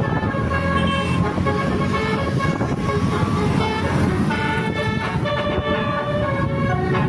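Basuri telolet musical air horn playing a melody, its tones holding and stepping from note to note, over a steady low rumble.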